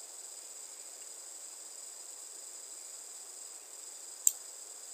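Faint steady high-pitched hiss with thin whining tones, and one sharp click about four seconds in, a computer mouse click.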